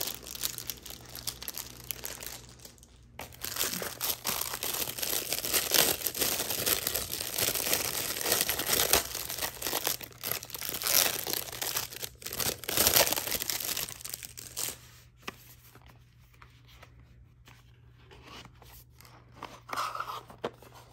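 Sticker packs and their packaging crinkling and rustling as they are handled and moved about, dense for the first fifteen seconds or so, then only a few light clicks and rustles.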